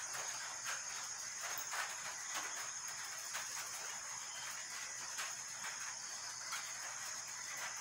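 Night insects chirring in a steady high-pitched drone, with faint scattered clicks.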